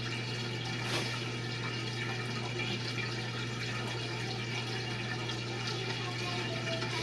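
Washing machine in its spin cycle: a steady low hum from the spinning drum with water rushing through it, and a single short click about a second in.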